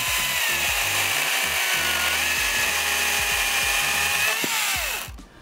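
Makita DUC254 18 V brushless cordless chainsaw cutting through an elder log: a steady high electric-motor whine with the rasp of the chain in wood, the pitch sagging slightly under load. Near the end the motor winds down and stops.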